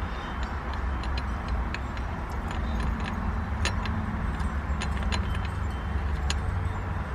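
Small metal parts of a short shifter clicking and clinking as they are handled and fitted: a dozen or so light, irregular ticks over a steady low rumble.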